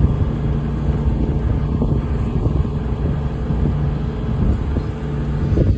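Tour boat's engine running steadily underway, a low even hum.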